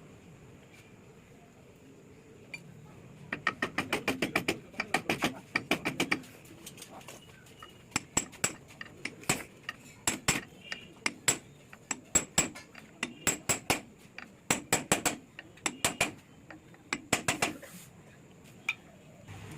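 Runs of quick, sharp metallic clicks and clinks from metal engine parts and hand tools being worked on an opened two-stroke motorcycle engine's gearbox, coming in bursts of several clicks a second with short pauses between.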